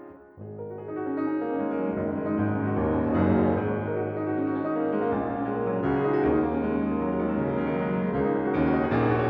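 Solo piano playing: a held chord dies away, then about half a second in a new passage begins, with low bass notes under a dense flow of notes that swells and stays full.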